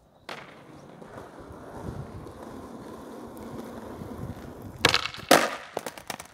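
Skateboard wheels rolling on a concrete court, growing slowly louder. About five seconds in come two sharp cracks, the tail popping and the board striking the ground, then a few lighter clatters as the board lands on its own after a missed flip trick.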